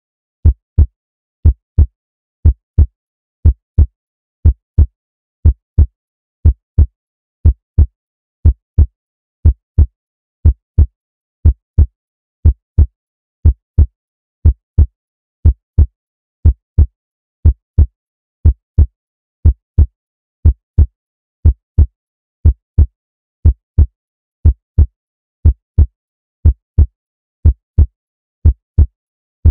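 Heartbeat sound effect: steady lub-dub double thumps, low and repeating about once a second.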